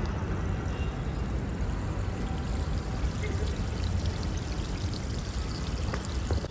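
Steady rushing of water flowing in an outdoor reflecting pool, with a low rumble underneath.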